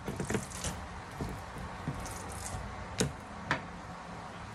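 Basting brush dabbing melted butter onto raw haddock fillets and dipping into a small bowl of butter: soft wet squishing and scraping, with scattered light taps and two sharp clicks about three seconds in.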